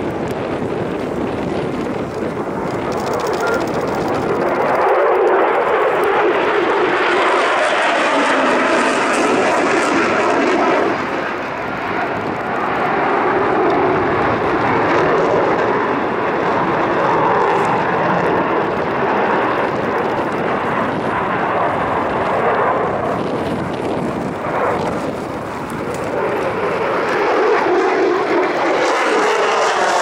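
Jet noise from a Mitsubishi F-2 fighter's single F110 turbofan as it flies display maneuvers overhead, loud and continuous, with a sweeping, phasing whoosh as it passes and slow swells and dips in level.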